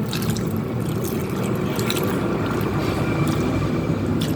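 Steady watery sound of liquid in the kitchen, mostly low in pitch with faint clicks on top.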